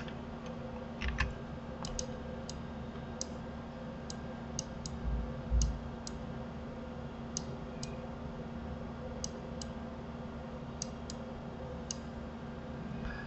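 Faint, irregular light clicks of a computer mouse's buttons, about fifteen in all, over a steady low electrical hum, with soft low thumps about a second in and again about five seconds in.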